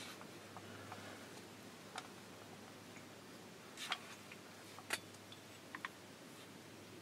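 Near quiet with a low steady hum and scattered faint clicks and ticks. The sharpest come about four and five seconds in.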